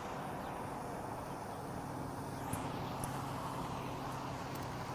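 Steady low hum of a distant motor under a hiss of background noise, with two faint clicks about halfway through.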